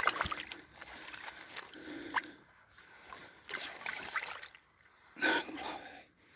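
Water splashing and sloshing as a sturgeon is slid off a wet floating mat and released into shallow water, with a louder splash about five seconds in.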